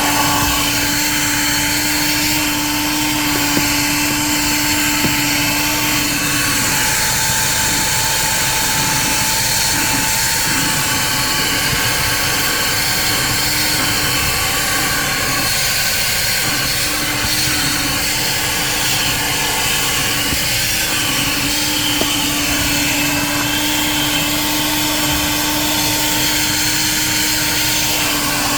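Bon Aire 1-gallon wet/dry shop vac running: a steady loud rush of air with a motor hum. The hum fades from about seven seconds in and comes back about twenty seconds in.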